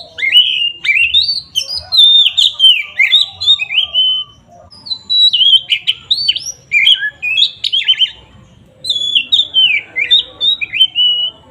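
Oriental magpie-robin singing loudly in fast runs of whistled notes, many sliding down in pitch, in three bursts with brief pauses between them.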